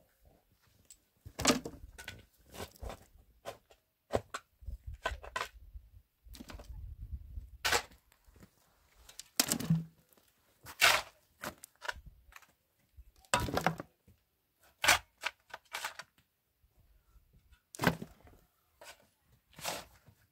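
Hand digging in dry, stony earth: a steel shovel scraping and striking into soil and gravel, with sharp, irregular strikes every second or two.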